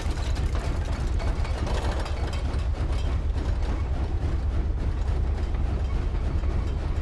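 Foley recreation of an approaching steam train: a steady deep rumble with fast, irregular rattling and clicking over it.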